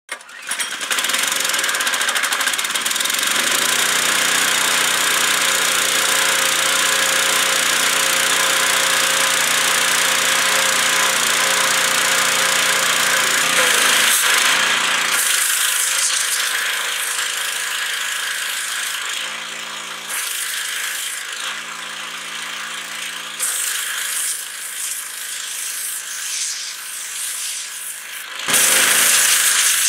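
Gas-engine pressure washer running steadily, its small engine's hum under the hiss of the high-pressure water jet. About halfway through, the engine hum mostly falls away and the hiss of the spray remains, with a louder rush near the end.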